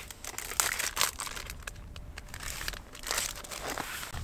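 Plastic wrapper of a disposable hot pack (chemical hand warmer) crinkling and being torn open, in short irregular rustles and crackles.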